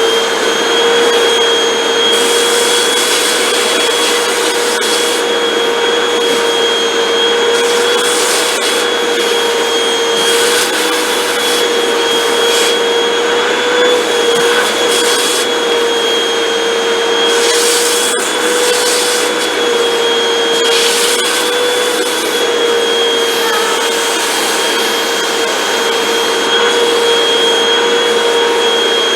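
Hoover WindTunnel 2 bagless upright vacuum cleaner running steadily, a motor whine over rushing air. Now and then the air briefly gets louder and hissier.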